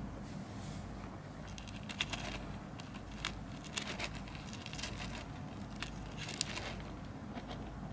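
Common rain frogs digging into soil: irregular small crackles and scratches of loose earth being pushed aside, over a steady low hum.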